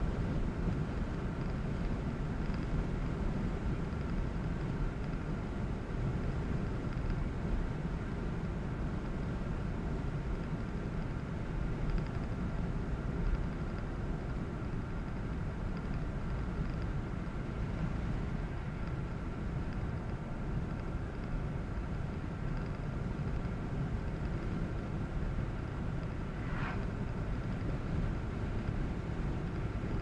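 A car driving steadily along a highway: constant low rumble of tyres on the road and engine hum.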